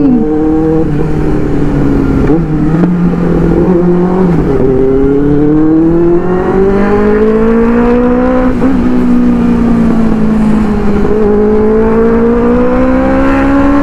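Inline-four superbike engine running under a light throttle on the move. Its pitch steps about four seconds in, then rises slowly, eases back and rises again. Wind rumbles on the microphone.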